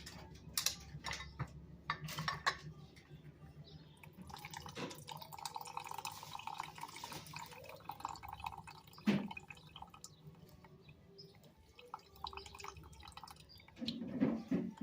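Juice dripping and trickling into a glass, with scattered clicks, a sharp knock about nine seconds in and a short clatter near the end.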